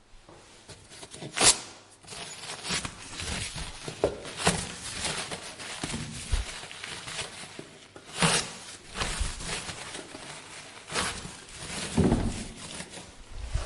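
Hands being washed under water: irregular splashing and rubbing of wet hands, with a few sharper splashes, the loudest about a second and a half in.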